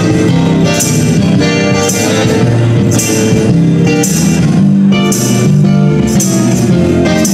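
Live blues band playing: electric guitar over stepping low bass notes, with a tambourine shaken in time, its jingle landing about once a second.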